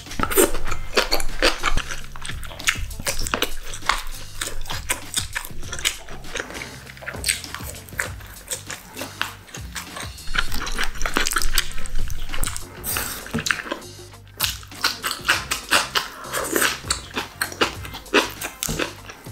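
Close-miked eating: noodles slurped and chewed, with many wet smacks and clicks, over background music.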